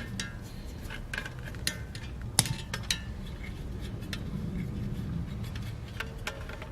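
Scattered light metallic clicks and clinks of hand tools and small parts as the refrigerator thermostat is unscrewed from its mounting plate, over a low steady hum.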